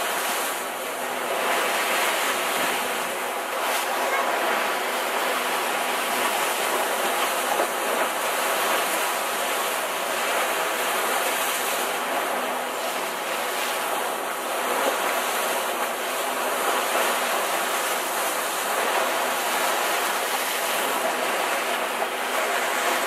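Sea water rushing and splashing along the hull of a moving catamaran, a steady wash without a break.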